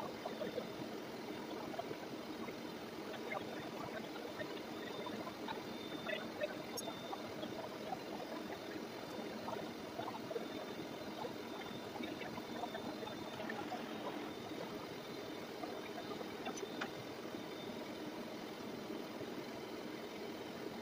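Lucas horizontal boring mill running in its high spindle range while an end mill makes a continuous milling cut along a metal bracket. A steady machine drone and faint whine, with many small ticks of chips striking the table.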